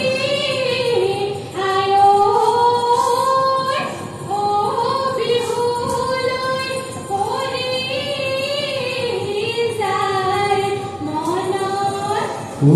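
A woman singing a Bihu song solo through a microphone and stage speakers, in long held phrases that glide between notes, with little or no drumming under her. The full band comes in louder at the very end.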